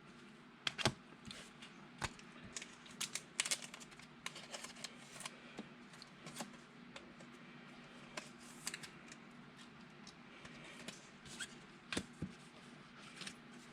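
Trading cards being handled and shuffled: faint scattered flicks, taps and rustles of cards sliding against each other, busiest a few seconds in.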